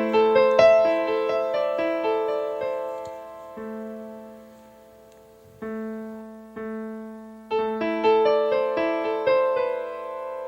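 Piano music: phrases of struck notes over a low sustained note, thinning out in the middle and picking up again.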